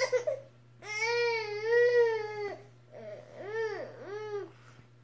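A baby vocalizing instead of drinking from the bottle: one long, wavering, high-pitched call about a second in, then three short calls that rise and fall in pitch.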